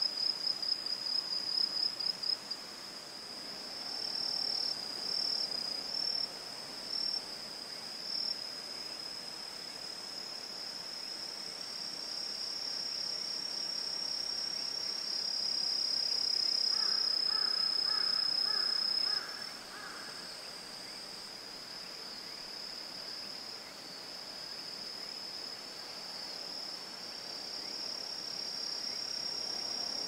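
Singing insects in autumn, a continuous high-pitched chirring: rapid pulsed chirps at first, settling into a steadier trill. A short run of about six lower notes sounds a little past the middle.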